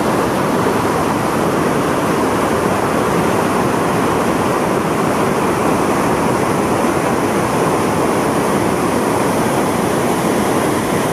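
The Rhine Falls, a large river waterfall, roaring: a loud, steady rush of white water pouring over rocks, with no breaks or changes.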